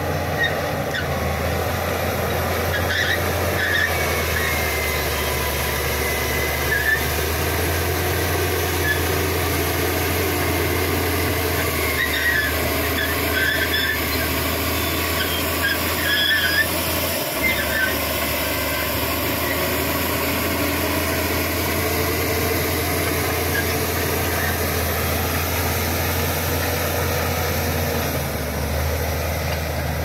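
Shantui SD16E crawler bulldozer's diesel engine running with a steady low drone, with short high squeaks and squeals coming and going from the steel tracks as the machine crawls over loose gravel. The squeals are most frequent midway through.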